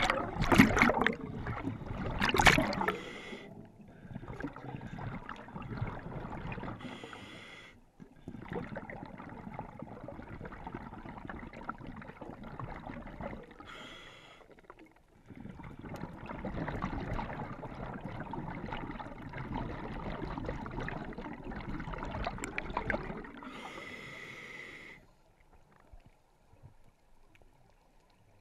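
Scuba diver breathing on a regulator underwater: a loud burst of exhaled bubbles at the start, then long rushes of bubbles broken by three short hissing inhalations through the regulator, roughly every seven to ten seconds. The sound drops to near quiet for the last few seconds.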